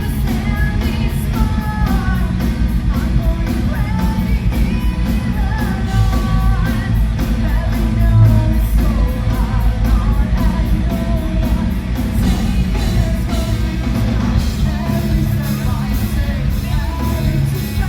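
A metal band playing live, with sung lead vocals over a loud full band and a fast, even beat. The beat's pattern changes about twelve seconds in.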